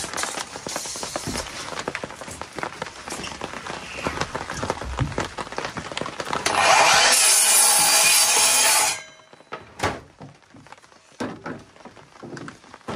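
Wooden boards handled and knocked against the saw table, then a Milwaukee miter saw cuts through a wooden board for about two and a half seconds, stopping quickly, followed by a few light knocks as the boards are moved.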